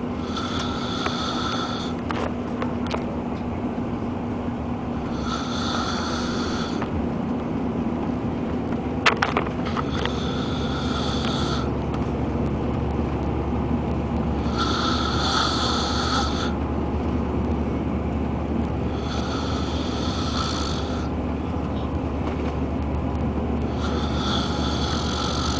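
A person snoring in a steady rhythm, one snore about every four and a half seconds, each lasting under two seconds, six in all, over a steady low rumble.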